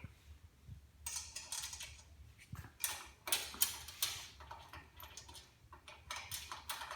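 Irregular light clicks and clinks of small metal hardware: washers and wing nuts being put on and threaded onto the bolts of a tractor's sheet-metal side panel.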